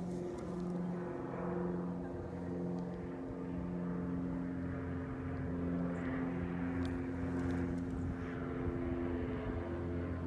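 A steady engine drone: several low, steady tones that waver slightly in level, with a few faint clicks.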